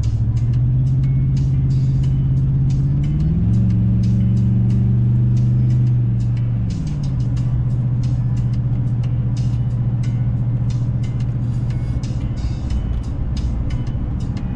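Car engine and exhaust droning steadily while driving. The revs rise about three seconds in, hold, and drop back after about seven seconds.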